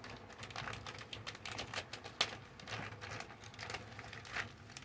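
Clear plastic accessory bag crinkling and rustling as it is handled and opened, with irregular small clicks and one sharper click about two seconds in.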